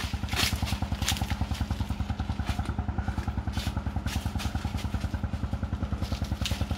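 A small engine running steadily, a rhythmic putter of about ten beats a second, with a few short rustles over it.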